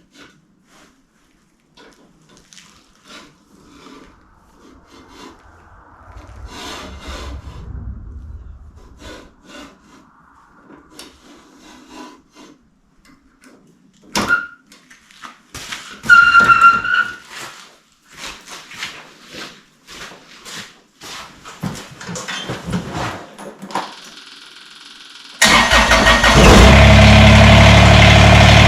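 Scattered clanks, knocks and a couple of short squeaks of metal parts being handled. Near the end, the Kubota BX2380 tractor's three-cylinder diesel engine starts abruptly and keeps running loudly.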